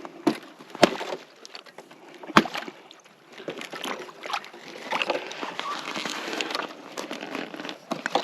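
Footsteps crunching through cold, crusted snow in an uneven walking rhythm, with two sharper snaps in the first few seconds.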